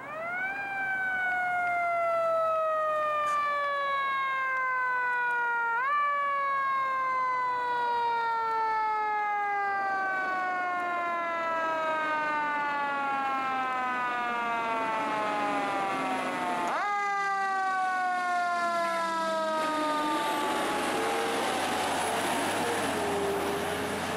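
Fire engine siren, swept up sharply three times (at the start, about six seconds in, and about seventeen seconds in), each time gliding slowly down in pitch. From about seventeen seconds a lower wavering wail joins it, and near the end the truck's engine and tyres pass close by.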